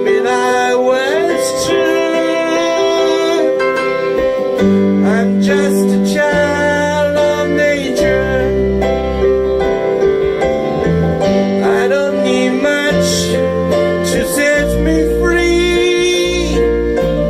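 A slow pop ballad: a singer over keyboard and guitar, with a bass line coming in about four and a half seconds in.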